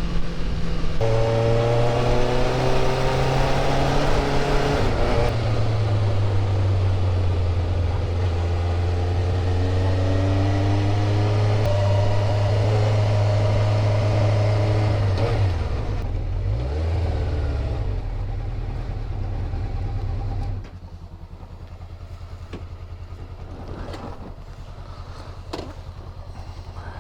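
1988 Honda CBR600F Hurricane's inline-four engine under way, its pitch stepping down twice in the first few seconds as it shifts up, then pulling steadily. About two-thirds through it eases off and falls in pitch, and near the end it drops to a quieter, steady low running.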